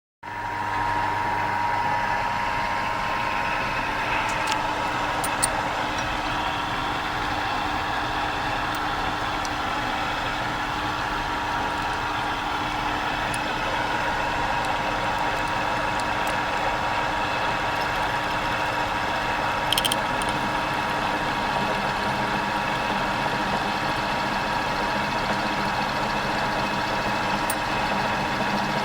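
A small electric motor running steadily with a constant hum and whine, and a few brief sharp clicks over it.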